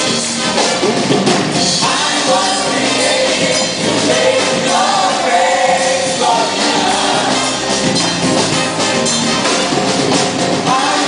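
Worship music: a band with drum kit, and voices singing over it.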